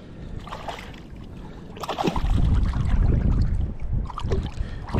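Strong wind buffeting the microphone as a low rumble, lighter at first and then gusting loud about two seconds in.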